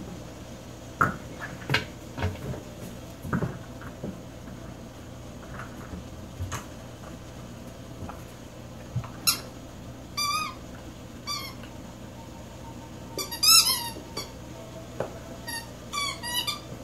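A teething puppy chewing rubber toys. Scattered light knocks and clatter come first, then about halfway through a rubber squeaky toy gives a series of short, wavering squeaks as it is bitten, with a quick cluster of them near the end.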